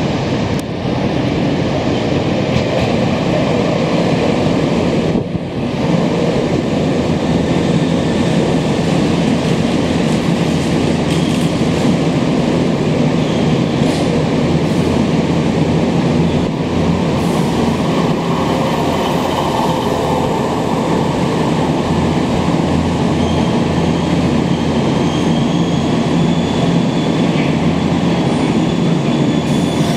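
Semboku Rapid Railway 3000 series electric commuter train pulling into a station platform: steady rolling noise of its cars running past and slowing, with a faint high squeal in the second half.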